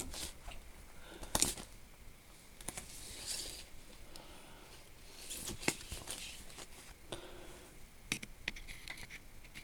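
Light clicks, knocks and rustling from small tools being handled and slid into a drawer of an antique tool chest, with the sharpest knocks about a second and a half in and near the middle.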